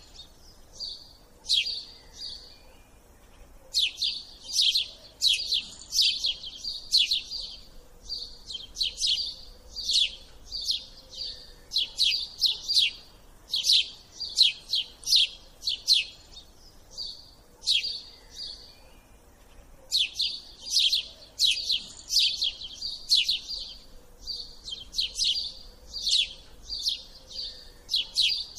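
Small songbird chirping: rapid runs of sharp, high tweets in repeated phrases broken by short pauses.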